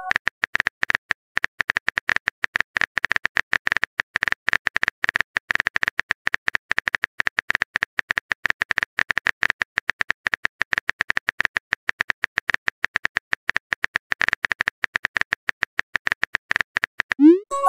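Phone keyboard typing clicks: a rapid, uneven stream of short taps as a text message is typed out letter by letter.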